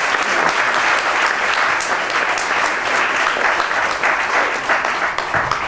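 Audience applauding steadily, a dense patter of many hands clapping that starts to tail off near the end.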